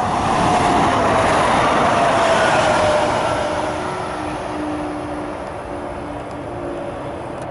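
Stadler FLIRT3 electric multiple unit passing at speed: a loud rush of wheel and running noise with a motor whine that falls in pitch as it goes by. The sound then fades as the train moves away.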